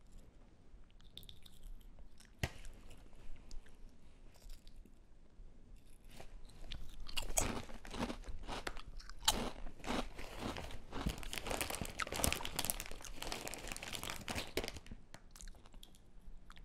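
A person eating a crunchy snack picked from a packet: faint at first, then loud, close crunching and chewing from about six seconds in, easing off near the end.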